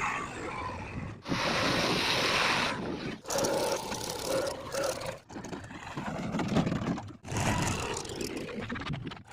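Heavy machinery engine noise in short clips that cut off abruptly about every two seconds, loudest and hissiest a little after one second in.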